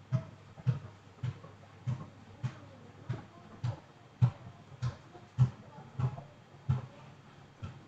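Cricut cutting machine running a stylus scoring pass on a foil sheet. The carriage goes back and forth with a regular knock a little under twice a second.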